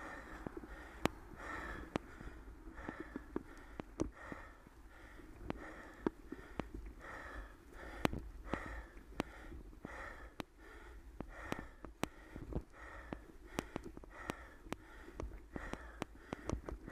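A cyclist breathing hard in steady, rhythmic puffs while pedalling, with sharp clicks and rattles from the bicycle running over rough, patched tarmac.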